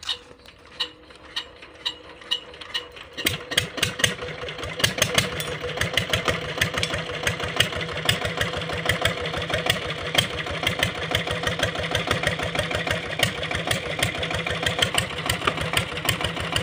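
New Chief single-cylinder diesel 'Peter' engine being started: a few spaced thuds over the first three seconds, then it catches and runs with a fast, even knocking beat that grows gradually louder.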